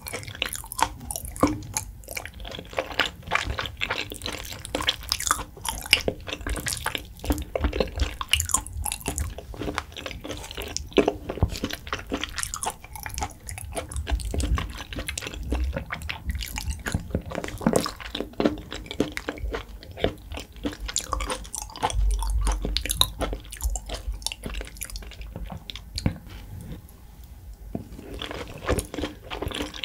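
Close-miked mouth sounds of someone chewing raw beef: a dense, irregular run of wet clicks and squishes. It goes quieter for a few seconds near the end, then picks up again as a new mouthful goes in.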